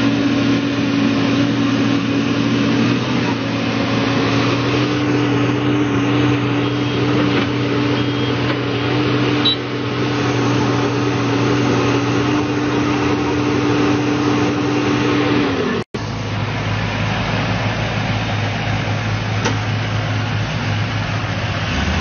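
Heavy construction machinery's diesel engine running with a steady drone. It cuts off abruptly about sixteen seconds in, and a different steady engine sound takes over.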